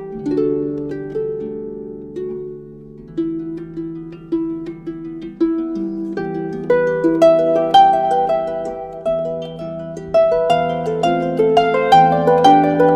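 Instrumental music of plucked or struck notes that ring and overlap, slow at first, then busier and louder from about six seconds in.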